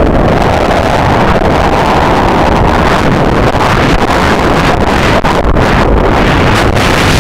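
Loud, steady wind buffeting the microphone on a moving jet ski, with the craft's engine and water rushing beneath it.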